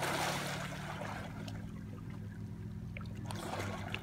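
A swimmer's headfirst surface dive in a lake: a splash right at the start as he goes under, fading within about a second into soft sloshing water.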